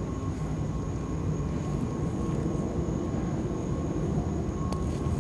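Steady low rumble of background noise, with a faint steady high tone over it and a small click near the end.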